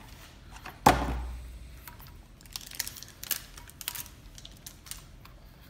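A thump about a second in, then light crinkling and clicking as a plastic tear strip and wrapper are pulled off a Pokéball tin.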